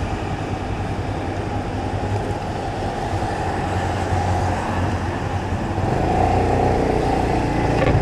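Road traffic: vehicle engines running steadily with tyre and road noise. About six seconds in, one engine grows louder.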